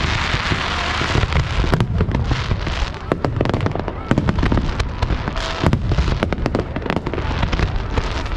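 Fireworks display: a rapid barrage of bangs and sharp cracks with crackling and a heavy low rumble, going on without a break.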